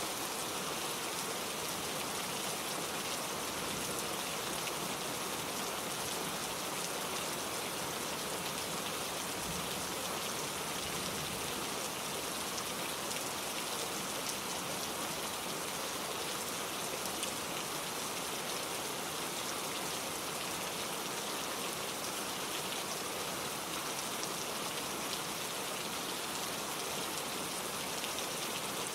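Steady rainfall, drops pattering on surfaces with an even hiss and no distinct events.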